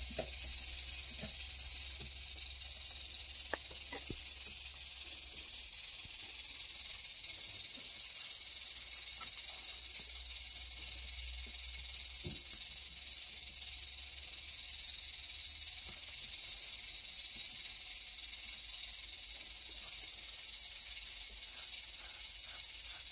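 A snake's tail rattling in a steady, high-pitched buzz that goes on without a break, a defensive warning. A low hum runs underneath.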